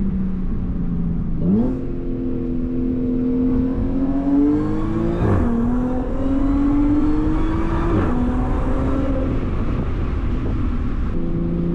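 Supercharged Audi V6 engine accelerating: its pitch climbs from about a second and a half in, drops sharply about halfway through as the gearbox shifts up, climbs again, and drops once more near eight seconds before settling to a steady cruise near the end.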